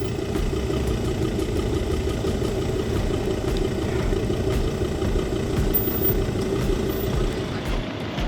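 An off-road vehicle's engine running at a steady speed, an even, unbroken drone.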